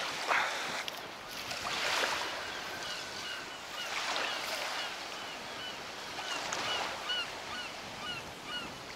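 Wind and small waves lapping at a sandy shore. For a few seconds in the middle, a faint high squeak repeats a few times a second.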